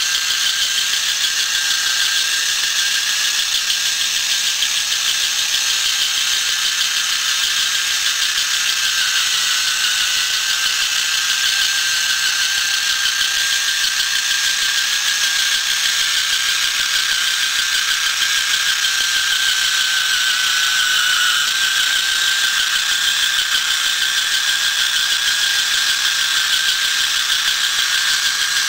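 Small battery-powered electric motor driving the plastic gears of a homemade tracked model tractor: a steady high mechanical whine with a gear rattle, its pitch dipping slightly a little after twenty seconds in.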